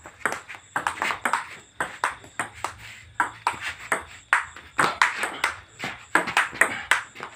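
Table tennis rally: a celluloid-style ball clicking sharply and quickly against the paddles and a bare wooden board table, about three hits a second.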